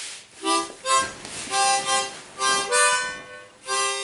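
Harmonica playing a short phrase of chords, about six notes, some clipped and some held longer, one with a slight upward bend.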